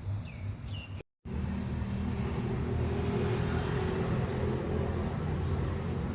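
A few bird chirps, then an abrupt cut about a second in to road traffic: a heavy, continuous low rumble of motor vehicle engines, with a steady tone held through the middle.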